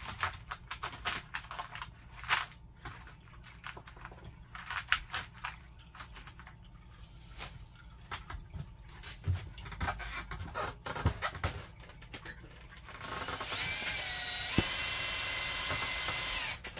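Clicks and knocks of a screw and tool being handled against sheet metal. About 13 seconds in, a power drill runs for roughly three and a half seconds, its whine rising and then holding steady, and stops abruptly. It is trying to drive a screw into stainless steel that the screw won't bite into.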